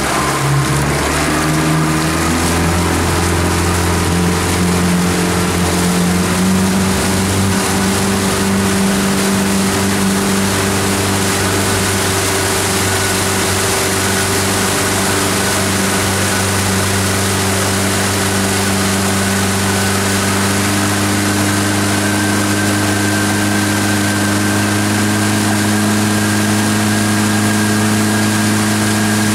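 Motorboat engine speeding up over the first several seconds as the boat gets under way, then running steadily while towing a rider on a board, with the rush of wake and wind.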